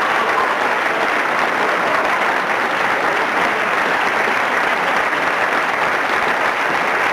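Steady applause from a large crowd, a dense even clatter of clapping at a constant level.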